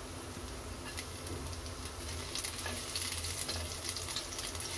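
Chopped garlic sizzling and crackling in hot oil in a kadhai, stirred with a silicone spatula; the crackle grows busier with sharp ticks from about halfway in.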